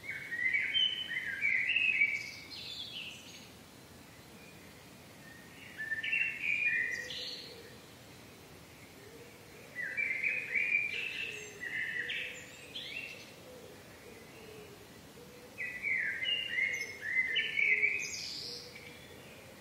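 A songbird singing in a morning backyard ambience. It gives a phrase of quick chirping notes four times, about every five seconds, over faint steady background noise.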